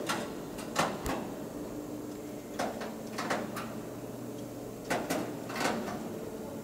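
Irregular sharp clicks and knocks, about seven of them, from an aluminium aircraft wing skin panel being handled and worked by hand. A faint steady hum runs underneath.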